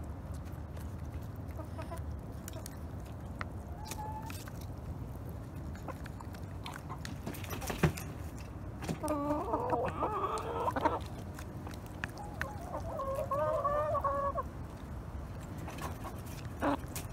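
Hens clucking while feeding: two stretches of pitched, wavering calls, each about two seconds long, in the second half. Scattered sharp clicks of beaks pecking at the feed dish, the loudest about eight seconds in.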